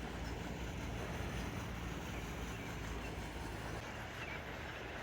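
Steady outdoor background noise with a low, even hum underneath and no distinct events.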